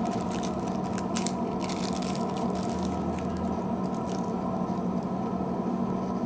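Small clicks and rustles of tiny plastic phone parts being handled, dying away about four seconds in, over a steady electrical hum.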